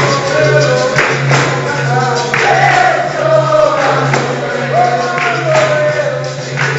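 Capoeira roda music: a chorus of voices singing over pandeiro and berimbau, with steady percussion strikes.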